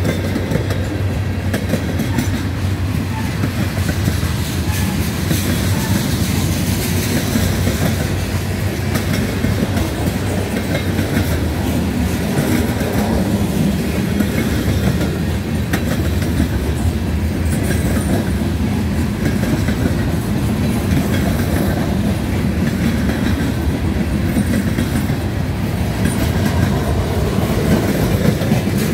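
Freight cars of a CSX local freight train rolling past close by: a steady, loud rumble of steel wheels on the rails.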